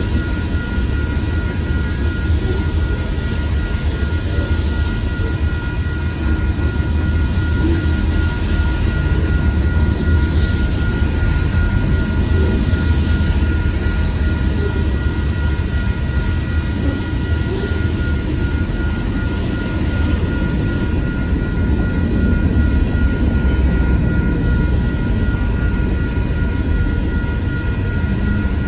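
Union Pacific manifest freight train rolling past at a grade crossing: a steady low rumble of covered hopper cars going by, with steady high tones over it.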